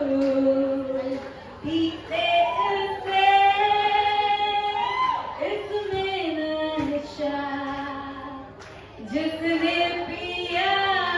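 A young woman singing solo into a handheld microphone, with no backing music. She holds long notes and slides between pitches, with short breaks for breath.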